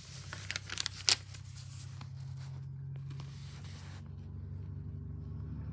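Paper rustling and crinkling as a paperback book's page is turned, a few sharp crackles in the first second or so, then a faint steady low hum.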